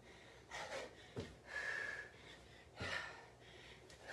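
A woman breathing hard during squat jumps, with short forceful exhales and one whistly breath. Dull thuds of her sneakers landing on an exercise mat come about every second and a half.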